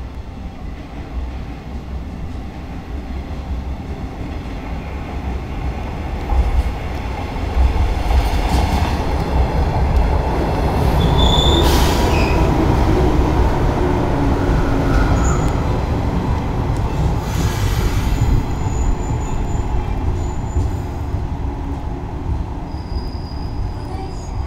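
JR West 115 series four-car electric train pulling into a station platform: a rumble of wheels and motors that builds to its loudest as the cars pass, then eases as the train slows to a stop. A few brief high-pitched squeals come through about halfway and again later.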